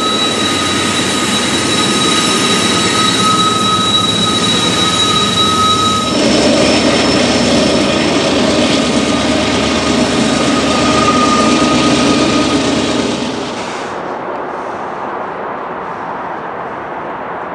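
Canadian Pacific diesel locomotive and freight cars rolling past at close range, with a steady high squeal over the first six seconds. About six seconds in, the engine's low rumble comes in louder, and about thirteen seconds in it drops to a quieter, duller rumble of a train of tank cars rolling by.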